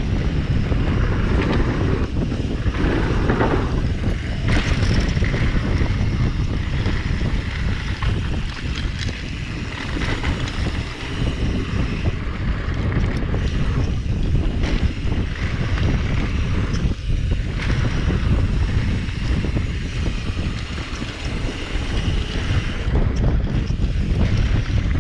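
Wind rushing over the microphone of a camera on a mountain bike riding down a dirt trail, mixed with the tyres rolling on dirt and the bike rattling, with short knocks scattered throughout.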